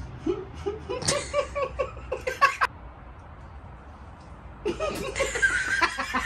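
A man laughing hard in quick, rapid bursts. He breaks off for about two seconds halfway through, then laughs again near the end.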